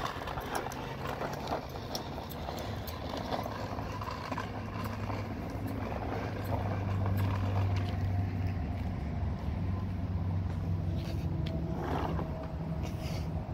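Plastic wheels of a toy bubble lawnmower clicking and rattling over a concrete sidewalk as it is pushed. A steady low engine hum comes in about a third of the way through and is loudest in the middle.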